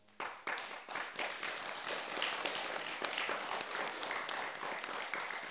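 Audience applauding: scattered claps at the very start swell within a second into steady, dense clapping.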